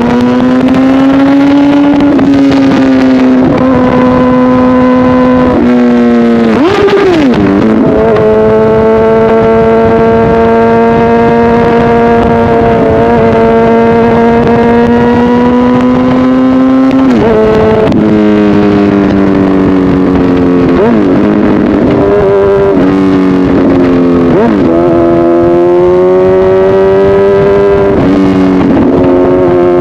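Honda CBR1000RR's inline-four engine through a loud SC-Project aftermarket exhaust, running at steady revs under way. About four times the pitch drops sharply and climbs back, as with gear changes or throttle changes.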